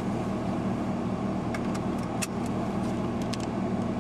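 Car engine idling, a steady low hum heard from inside the cabin, with a few light clicks as a seatbelt is fastened.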